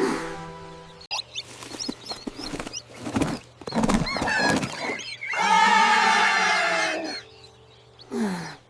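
Cartoon sound effects and character vocalising: a run of short chirps and clicks, then a long, loud animal-like cry whose pitch sinks slightly, and a quick downward-gliding tone near the end.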